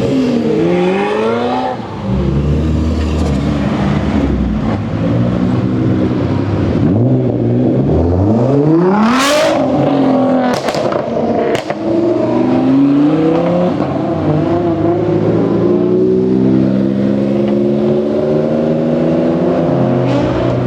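Several supercar engines driving slowly past, their pitch rising and falling as they rev. About halfway through one engine revs up sharply, followed by a few sharp cracks, and near the end the engines settle into a steady running note.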